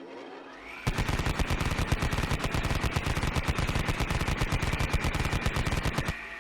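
Machine gun sound effect: a whine rises, then very rapid automatic fire runs unbroken for about five seconds, and a steady high whine carries on after the shots stop.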